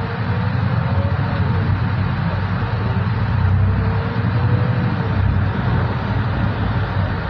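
Solaris Urbino 12 IV city bus heard from inside while driving: steady low engine and road rumble, with a faint whine that rises and falls in pitch a few times.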